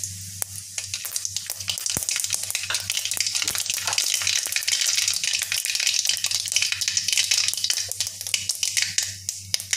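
Mustard seeds sizzling and popping in hot oil in an iron kadai, a dense crackle of many sharp pops: the oil is hot enough for the seeds to splutter, the first step of a tempering.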